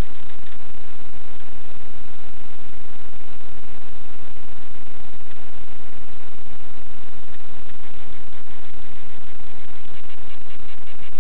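Loud, steady buzzing static with no distinct events.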